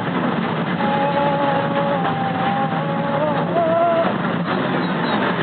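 Scenic Railway carriage running down its steep incline track, a steady loud rumble and rattle. From about a second in to about four seconds in, a high squeal of a few held tones rides over it.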